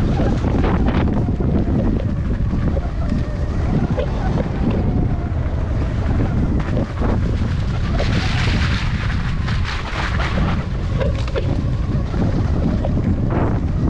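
Heavy wind buffeting on the microphone while a Sur-Ron electric dirt bike is ridden over rough ground, with frequent knocks and rattles from the bike.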